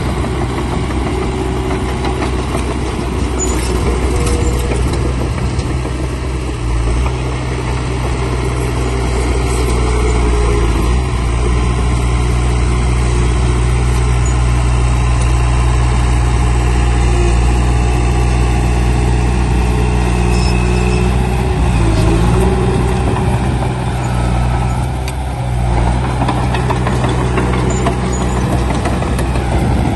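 Heavy earthmoving machinery's diesel engine running loud and steady, its pitch and load shifting a few times, about a quarter of the way in and again past two-thirds.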